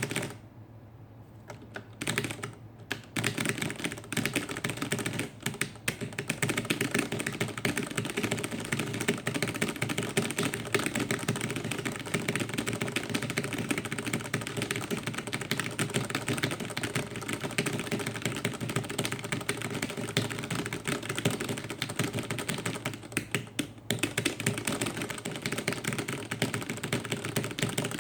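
Computer keyboard typed on rapidly and continuously, a dense stream of key clicks. There is a single click at the start, the steady typing begins about two seconds in, and there is a brief pause near the end.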